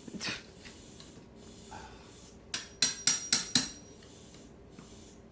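A hammer striking a metal tool into a wall corner. A single knock comes right at the start, then a quick run of about five sharp blows with a metallic ring, a little past halfway through.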